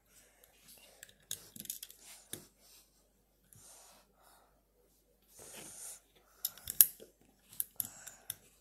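Lego bricks clicking and snapping as pieces are pressed onto a small model by hand, in scattered sharp clicks with the loudest cluster about two-thirds of the way in. Short soft hissy sounds come in between.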